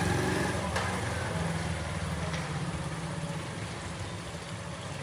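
A steady low engine-like rumble, easing slightly in level, with a couple of faint clicks.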